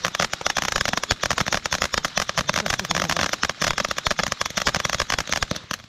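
Ground fountain firework spraying sparks, giving off a dense, rapid crackle of many small pops. It fades out near the end.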